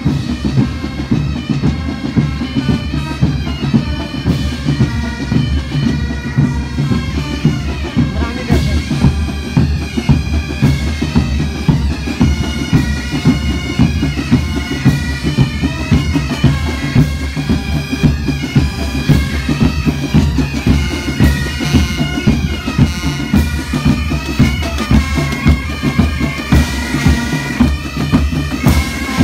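Bagpipes playing a tune over their steady drone, with a steady drum beat.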